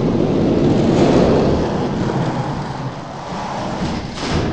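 Toy die-cast monster trucks rolling down an orange plastic Hot Wheels track, a rumbling roll that swells and then eases off.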